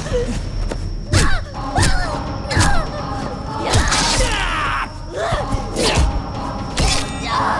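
Film fight-scene sound effects: a quick series of punches and strikes landing, about one hit every second, with short grunts and cries after several of them, over a music bed.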